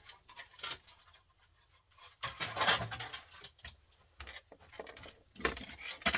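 Small plastic and metal printer parts being handled and set down: irregular clicks and taps, with busier bursts of rattling about two and a half seconds in and near the end.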